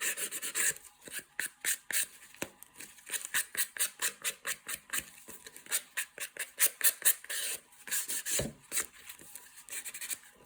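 Sandpaper rubbed in quick, repeated short strokes along the edges of a card, a dry scratchy rasp that smooths and distresses the edges.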